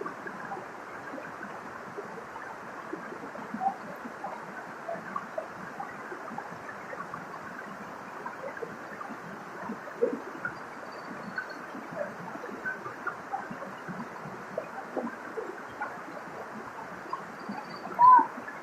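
Waterfall running steadily, a continuous rush of falling water with many small splashes and gurgles, and one louder short splash or call near the end. Faint high bird chirps come through now and then.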